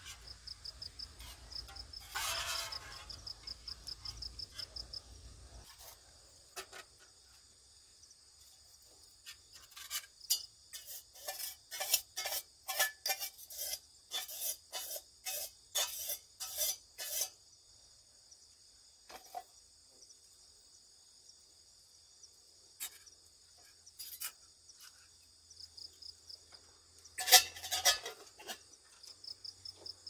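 Crickets chirping steadily in a fast pulsing trill. Through the middle comes a run of quick scraping strokes, about two a second, and about 27 seconds in there is one louder short clatter.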